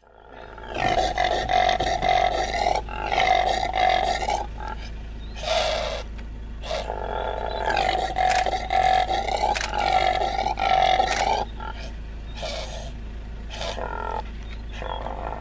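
Male impala roaring, the rutting call of territorial rams: two long calls of several seconds each, split by a short one about five and a half seconds in, then a run of short calls near the end.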